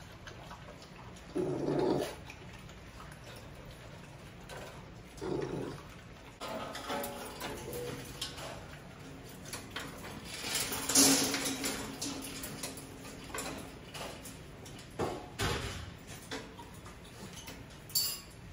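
XL pit bull puppies feeding inside a metal wire crate: bowls and crate bars clink and clatter now and then, the loudest clatter about eleven seconds in, with a few short dog vocal sounds.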